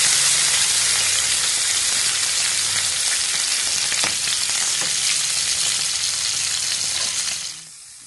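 Marinated chicken breast sizzling in hot oil in a non-stick frying pan: a steady frying hiss that cuts off suddenly near the end.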